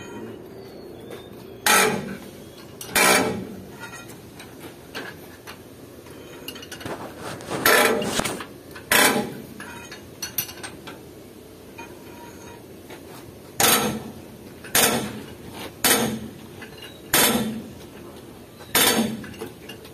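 Hand hammer striking steel parts at a truck's rear axle and leaf-spring seat: about nine sharp metal clangs at uneven intervals, some in pairs about a second apart, each ringing briefly.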